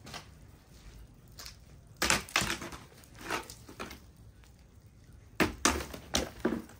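Food preparation: irregular sharp knocks and clatters in small clusters, about two seconds in and again near the end.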